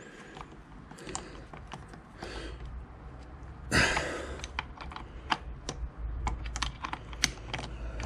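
Ratchet and socket clicking irregularly, about three or four clicks a second, as a rear brake caliper mounting bolt is wound out, with one short, louder scraping rasp about four seconds in.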